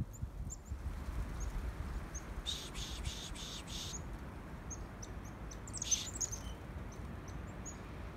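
Small songbirds calling in woodland: scattered short, high chirps throughout, a rapid trill starting about two and a half seconds in and lasting over a second, and another flurry of chirps about six seconds in, over a low steady background noise.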